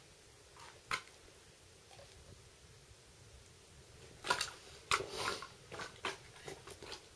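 Clicks and rattles from a Ruger Mini 14 rifle being handled: a single sharp click about a second in, then a cluster of clicks and rattles from about four to seven seconds in. No shots are fired; the rifle has run empty.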